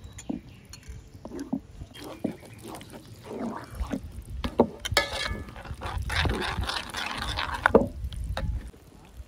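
Wooden spatula stirring and scraping a thick, wet eggplant and curd mixture in a metal pot, with irregular knocks against the pot. The stirring gets busier and louder about halfway through and stops shortly before the end.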